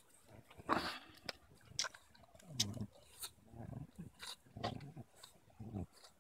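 English Bulldog growling while biting and chewing a tree branch: about four short, low growls in the second half, with sharp cracks and snaps of wood between her teeth.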